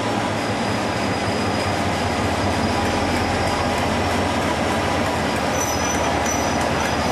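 Diesel locomotive pushing a carriage set slowly past: a steady engine rumble and wheel rolling noise, with a faint, high wheel squeal over it.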